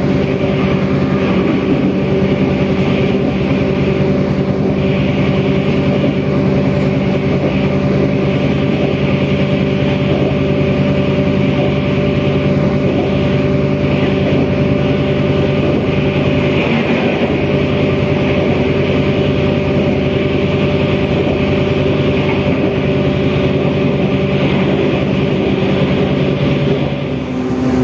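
Diesel railcar (KRD diesel multiple unit) running steadily at speed, heard from inside the passenger car: a steady engine drone with several pitched tones, under a rushing hiss of the moving train. The sound eases off slightly near the end.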